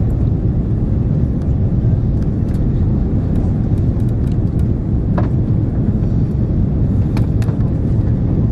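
Steady low rumble of engine and airflow noise inside the cabin of an Airbus A330-300 on final approach, with a few faint clicks about halfway through and again near the end.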